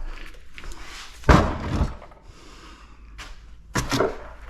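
Knocks and clunks of scrap metal parts from a dismantled air filter being handled and set down. A heavy thud comes about a second in, with lighter knocks later.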